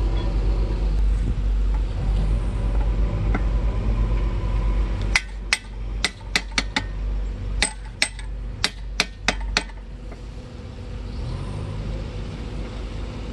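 A hammer strikes the steel bearing cap on a truck differential carrier, seating the cap over the crown wheel's carrier bearing. About a dozen sharp metallic blows start about five seconds in and come in quick groups, over a steady low rumble.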